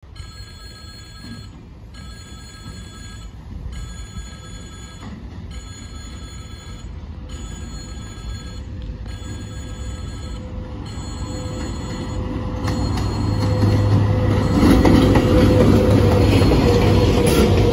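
Level-crossing warning bell ringing in repeated rings, one about every second and a half, stopping about twelve seconds in. Meanwhile an approaching freight train grows steadily louder. Its VL80S AC electric locomotive passes close near the end with wheel noise on the rails and a steady low hum, and this is the loudest part.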